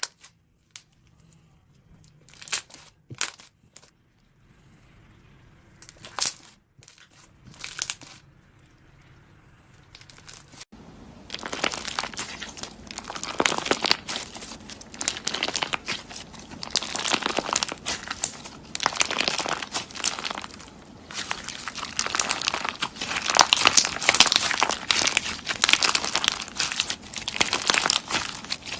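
Slime being worked by hand, giving crackly, crinkling pops: a few short separate bursts at first, then steady dense crackling from about a third of the way in.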